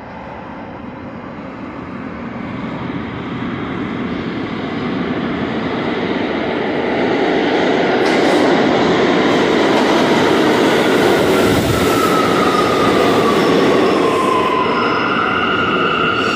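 New York City Subway R179 train pulling into an underground station, its rumble and wheel noise growing louder and louder as it arrives. As it slows, a whine falls in pitch, and it settles into a steady high tone near the end as the train brakes toward a stop.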